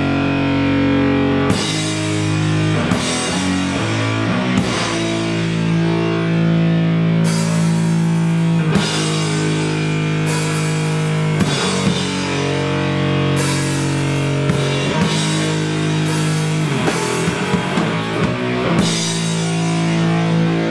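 A live doom/sludge metal duo playing: a distorted electric guitar holds slow, sustained chords over a drum kit, with cymbal crashes every second or two.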